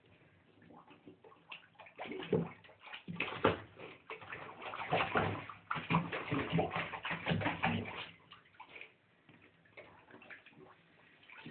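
Water sloshing and splashing in a bathtub as a small dog moves about in shallow water, in irregular bursts for several seconds that die down near the end.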